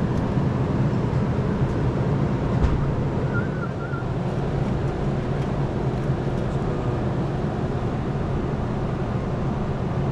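Steady low rumble of a running motor vehicle engine, with a faint short chirp about three and a half seconds in.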